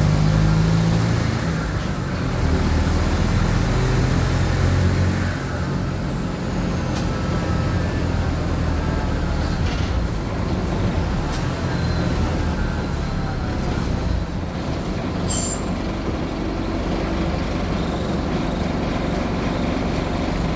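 Mercedes-Benz OF-1722M city bus's diesel engine pulling hard for about the first five seconds, with a high whine rising and falling, then easing off to an even run with road noise as the bus rolls on.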